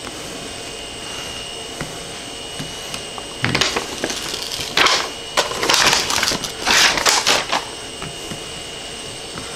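Paper release liner being peeled off the 3M self-adhesive backing of a magnetic build-plate base, rustling and crackling in several bursts through the middle. A faint steady high whine runs underneath.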